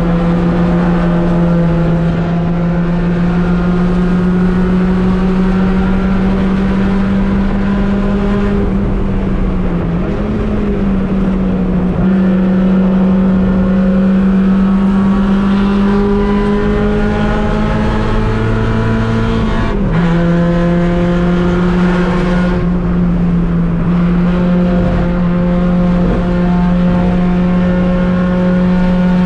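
Race car engine running hard on track, its pitch climbing slowly and dropping sharply about ten seconds in and again near twenty seconds.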